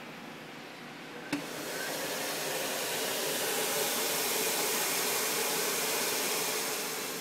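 A click, then a blower switching on and running with a steady air rush, swelling over about a second and easing near the end.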